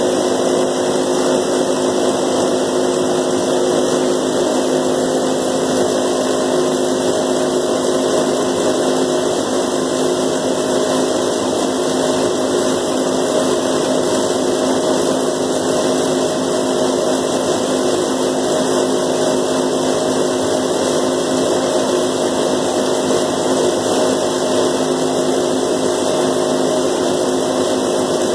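30-foot Valmetal silo unloader running steadily on the silage inside a concrete silo. It makes a loud, even machine hum with several steady tones and no change throughout.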